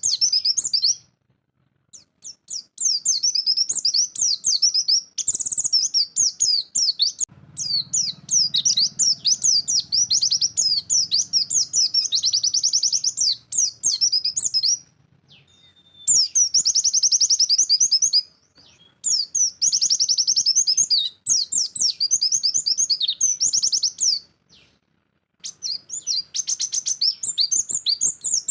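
White-eye (pleci) singing its fast 'nembak' song: long runs of rapid, high twittering notes, broken by short pauses of about a second.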